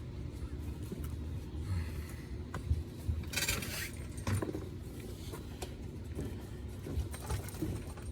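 Small metal clicks, clinks and scrapes of hand tools working on air-conditioner line-set service ports to take out the Schrader valve cores. A short hiss comes about three and a half seconds in.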